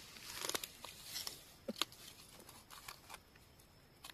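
Faint rustling and crackling of dry leaf litter with scattered small snaps and clicks, as hands pick mushrooms on the forest floor.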